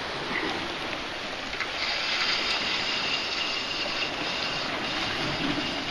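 Sea washing against the rocks as a steady hiss. About two seconds in, a higher, steady whirring joins it and stops near the end.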